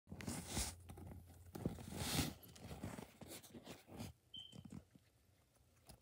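Crackling, rustling and clicking close to the phone's microphone as a pet hamster is handled, dying down after about four seconds, with one brief high chirp.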